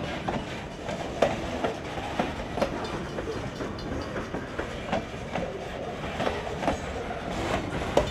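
Freight cars of a Vermont Railway train (covered hoppers and lumber-laden centerbeam flatcars) rolling past, with a steady rumble and sharp, irregular clacks as the wheels cross rail joints.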